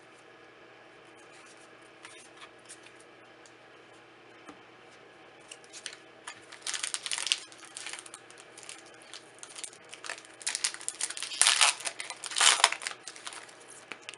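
Foil wrapper of a Magic: The Gathering booster pack crinkling and tearing as it is opened: a few faint ticks at first, then bursts of crackly rustling in the second half, loudest near the end.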